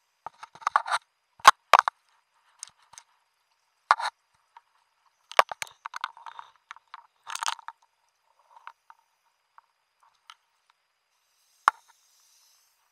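Irregular sharp clicks, crackles and scraping knocks picked up underwater by a wrist-mounted camera in its housing, coming in short clusters with gaps between, and one last sharp click near the end.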